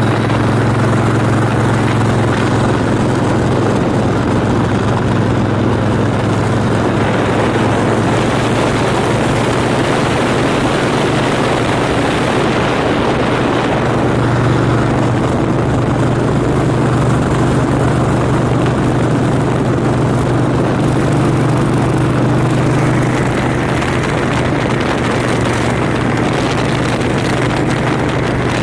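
Harley-Davidson V-twin motorcycle engine running steadily at cruising speed, with wind rushing over the microphone.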